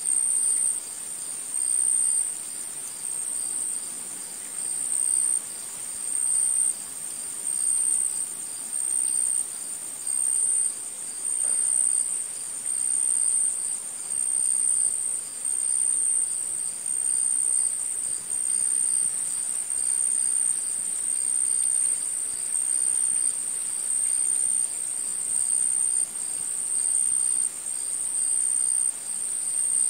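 A cricket-like insect chirping: a high, shrill trill that swells into pulses of a little under a second, repeating about every 1.3 seconds.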